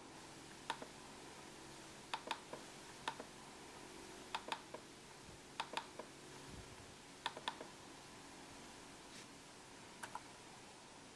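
Laptop keyboard keys clicking: scattered single presses, mostly in short clusters of two or three, about a dozen in all, over a faint steady hum.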